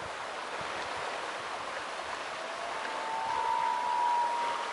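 A common loon gives one long wail call, starting a little past halfway and held on a steady note, over a constant rush of wind and waves on the lake.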